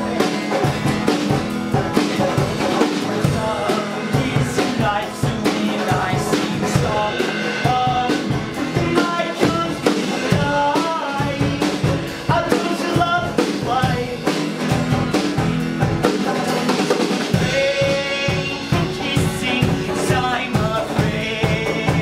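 Live folk punk band playing: acoustic guitar strummed over a full drum kit with steady snare and kick beats, and a man singing.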